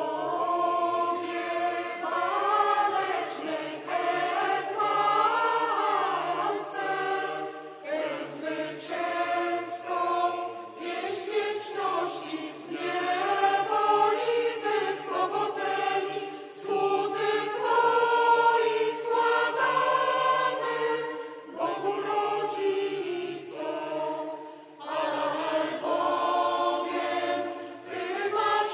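Mixed choir singing an unaccompanied Orthodox kondakion set to a Greek chant melody. The choir sings in phrases with short breaks, the upper voices moving over a low held bass note.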